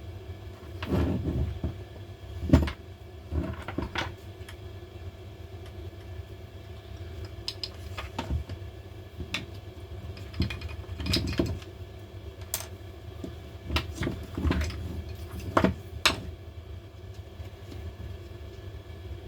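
Scattered clicks and knocks of small cordless impact driver parts being handled and set down on a workbench, the sharpest about two and a half seconds in, over a steady low hum.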